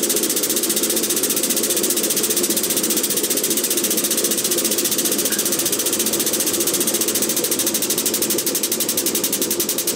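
Air-over-hydraulic 20-ton bottle jack's air pump running with a rapid, steady chatter as it pumps the press ram up under load.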